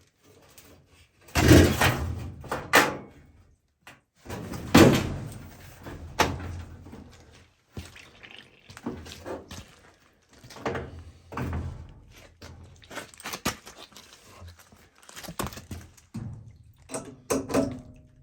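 Hand tools and metal parts knocking and clattering against an oil furnace burner while it is being worked on. The thunks come irregularly, the two loudest about a second and a half and five seconds in, with many smaller knocks after.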